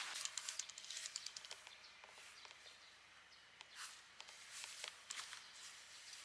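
Quiet outdoor ambience with scattered light clicks and rustles, thickest in the first two seconds, then a few single louder clicks.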